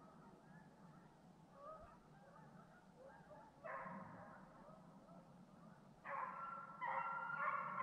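A pack of deer hounds baying in chorus while running a deer. It starts faint, then several voices join about four seconds in, and the chorus grows louder again about six seconds in.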